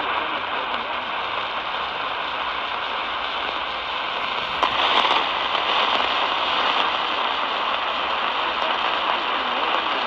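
Steady AM radio hiss and static from an Eton Elite Traveler portable radio's speaker, tuned to a weak AM station between spoken announcements. About halfway through a button clicks and the hiss gets louder as the volume is turned up to maximum.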